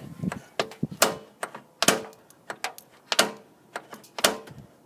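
Door latch and lock mechanism of a 1998 Jeep Cherokee XJ being worked by hand, giving four loud sharp clicks about a second apart with lighter ticks between. The latch, once stuck, now moves freely after being cleaned out with gasoline.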